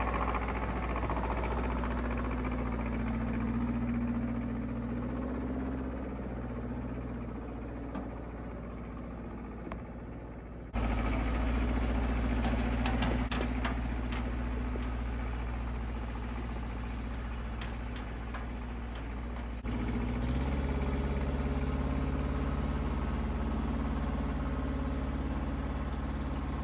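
Compact tractor engine running at a steady speed while towing a kinetic log splitter. The sound jumps abruptly in level about eleven and twenty seconds in, and the engine note steps up slightly just after the second jump.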